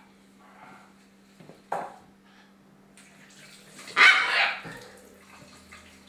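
Baby Shamrock Macaw squawking: a short harsh squawk, then a louder raspy squawk of about half a second around four seconds in.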